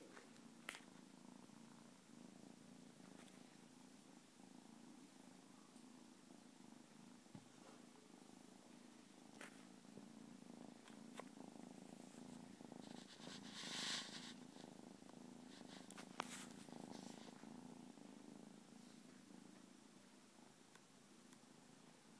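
Bengal kitten purring steadily and softly as it is stroked, an even pulsing rumble throughout. A few small clicks and a brief rustle about two-thirds of the way through stand out above it.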